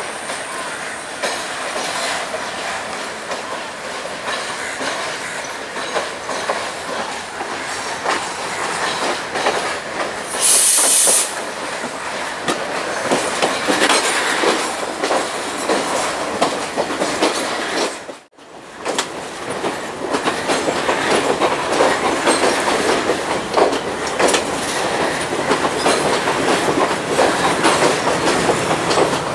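Diesel multiple unit carriages rolling past at low speed, wheels clattering over rail joints and points, with a short high-pitched wheel squeal about ten seconds in. The sound cuts out briefly just past halfway, then the clattering of carriages resumes and grows louder.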